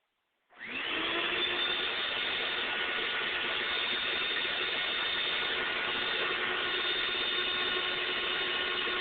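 Electric vacuum cleaner switched on about half a second in: its motor spins up within a fraction of a second, then runs steadily with a high whine over a loud rush of air.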